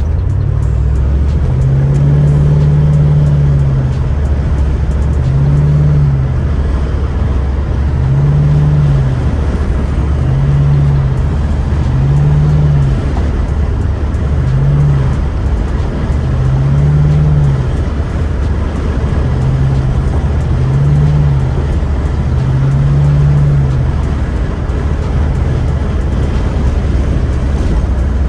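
Box Chevy driving at speed, its engine and road noise a steady low rumble, with music from the car's stereo on top: deep bass notes that swell and fade about every two seconds.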